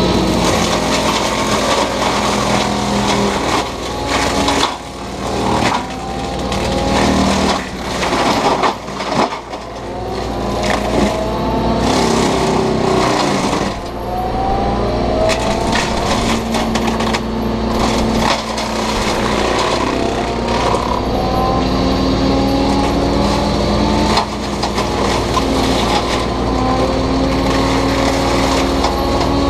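Takeuchi TB290 excavator's diesel engine running under load while its FAE mulching head shreds brush and wood, with a whining tone that rises and falls and irregular knocks and crunches of material going through the rotor.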